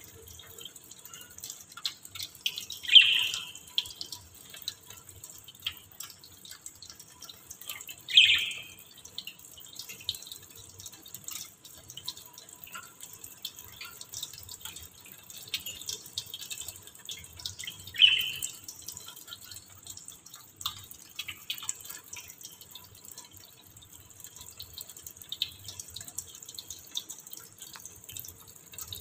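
Water from a tap dripping and splashing into a stainless-steel sink, with a steady hiss and many small ticks of drops. Three louder, short sharp sounds stand out, about 3, 8 and 18 seconds in.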